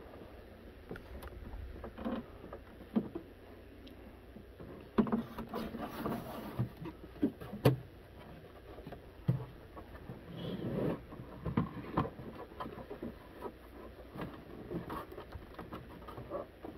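Hands handling and turning a Radio Shack TRS-80 Model 4P computer's case: irregular knocks, clicks and scrapes as it is gripped and shifted on the desk, with sharper knocks about five and eight seconds in.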